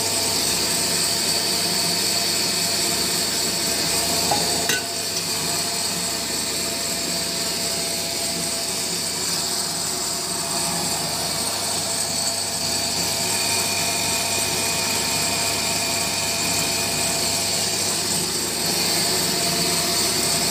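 Small electric flat-die feed pellet mill running steadily while it presses feed into pellets, a constant motor hum with pellets trickling out of the chute into a metal bucket. A brief knock sounds about four and a half seconds in.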